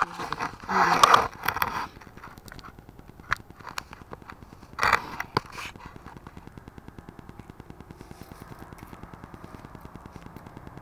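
Handling noise close to the microphone: two loud scrapes with knocks and clicks, about a second in and again about five seconds in. After that only a faint, fast, even ticking remains.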